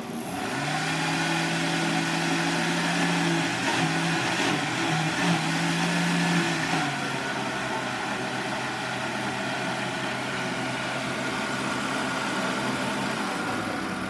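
Countertop electric blender running steadily, its motor whirring as it blends a creamy mixture in the jar. It is a little quieter after about seven seconds.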